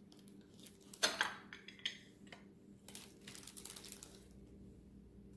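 Small handling noises while a cocktail is being made: a sharp knock about a second in, then a few short clattering, rustling sounds up to about four seconds in, over a faint steady hum.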